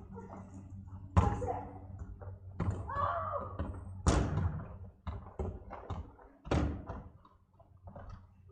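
A football being kicked and bouncing: several dull thumps at irregular spacing, the loudest about a second, four seconds and six and a half seconds in.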